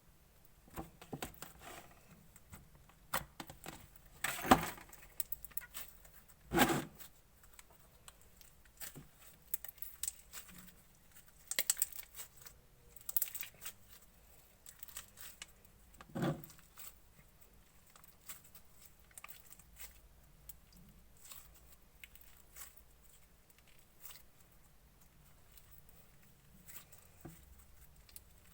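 Clear slime being mixed and squished by hand: irregular sticky clicks and crackling pops with quiet gaps between them, the loudest a few seconds in.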